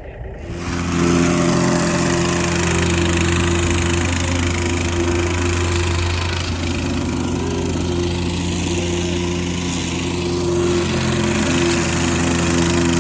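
Engine running steadily at constant speed, starting abruptly about half a second in.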